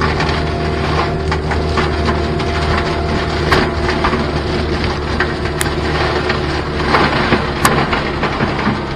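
Forestry mulcher head on a diesel compact track loader shredding thick brush. A steady engine and hydraulic drone runs under frequent snapping and splintering of wood, with several sharp cracks in the second half.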